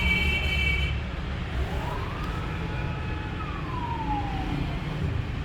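Siren wailing: one slow rise and fall in pitch, starting to rise again at the very end, over a steady low rumble.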